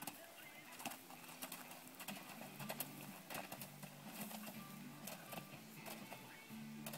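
Faint background music with sustained low notes that step from pitch to pitch, with scattered sharp clicks over it.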